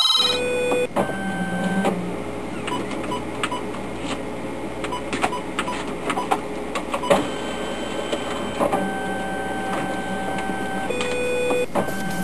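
Fax machine receiving and printing a page: a steady mechanical whirr with irregular clicks, and a few held beeping tones about a second in and again near the end.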